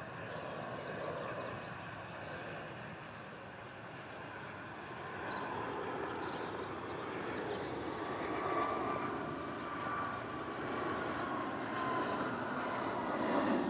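An aircraft passing overhead: a steady rush of engine noise with a faint whine that grows louder through the second half.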